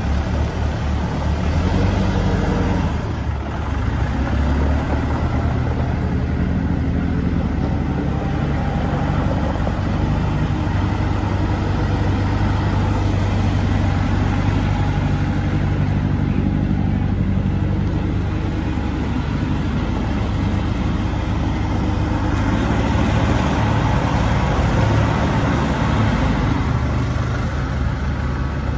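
Perkins diesel engine of a 2009 McCormick C105 tractor running steadily as the tractor is driven across gravel.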